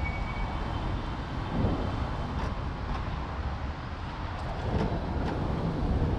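Busy city street ambience: a steady rumble of traffic, with a few faint ticks.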